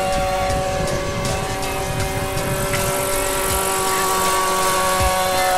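Radio-controlled scale model SA 315 Lama helicopter in flight: a steady high whine from its drive with the whir of the rotor, over a gusty rumble of wind on the microphone.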